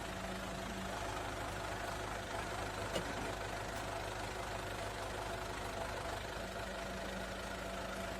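Ford Mondeo engine idling steadily, with one brief click about three seconds in.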